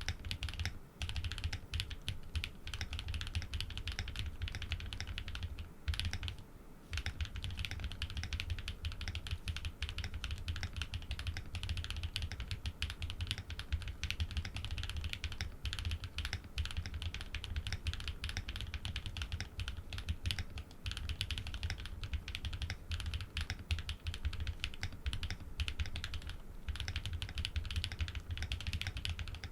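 Fast, continuous typing on a Think6.5 v2 custom mechanical keyboard with Cow switches, PBT keycaps, an FR4 plate and full foam, with a short break about six seconds in.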